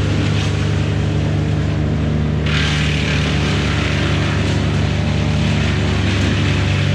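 An engine running steadily at constant speed, with a hissing noise that gets louder about two and a half seconds in.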